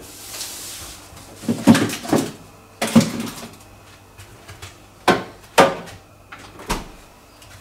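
About six separate knocks and thumps, as of a kitchen door or cupboard being opened, shut and handled, after a brief hiss in the first second.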